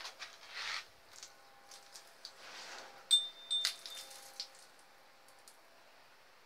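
Water from a garden hose spraying and splashing onto a head of cattle's wet hide in soft hissing spurts. Just after three seconds in come two short, sharp ringing clinks.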